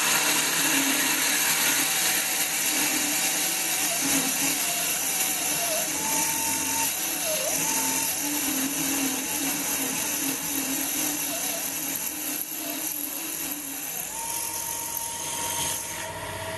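A belt-driven 775 DC motor power spindle runs a 15/64-inch drill dry into cast iron, giving a steady motor whine over a broad hiss. The whine sags and wavers in pitch as the drill is fed in under load, then settles back to a steady higher pitch about fourteen seconds in as the load eases.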